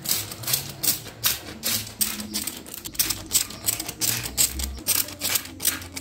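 Hand-held trigger spray bottle misting plant leaves, squirted over and over at about two to three squirts a second, each one a short hiss.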